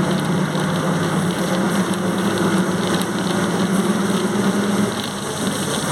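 Volkswagen 17.230 OD bus under way, its engine running with a steady whine from the transmission over the road noise. The whine eases off briefly near the end.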